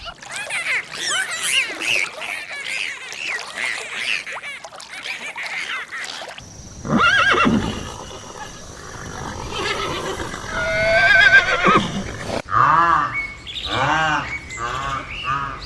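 Animal calls cut together: first a dense chorus of short, high chirping calls, then from about six seconds in a horse neighing and whinnying, ending in a fast, shaking run of pulses.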